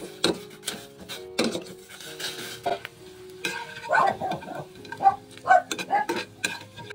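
Cookware clattering: a metal utensil scraping and knocking irregularly against a frying pan as small fried dried fish are turned and lifted out, with a light sizzle.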